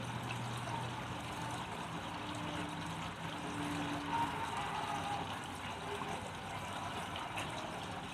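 Quiet background music: soft held notes changing pitch every second or so over a steady hissing wash. It is not the bandsaw, whose audio has been removed.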